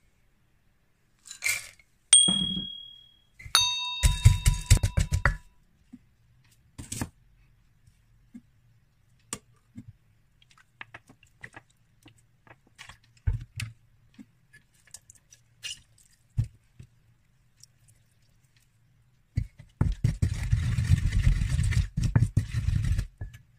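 Wooden pestle pounding chillies and garlic in a mortar, rapid repeated thuds for about three seconds near the end. Before that come scattered small clicks and taps of ingredients and a spoon, with a couple of short ringing clinks and a quick run of knocks a few seconds in.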